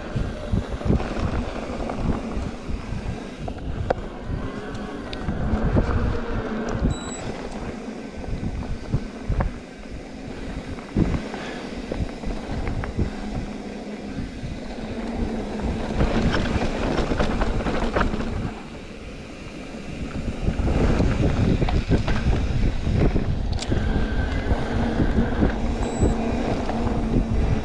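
Specialized Turbo Levo e-mountain bike ridden over rough trail, with wind buffeting the microphone of a chest-mounted action camera and a steady run of irregular low thumps and rattles from the bike. The sound drops briefly about two-thirds of the way through, then comes back as loud as before.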